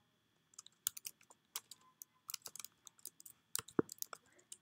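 Typing on a computer keyboard: irregular, quick keystroke clicks, starting about half a second in and coming faster near the end.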